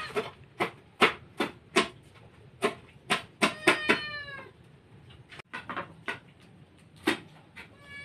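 A cat meowing once, about three and a half seconds in, over a run of sharp knocks that come two or three a second for stretches.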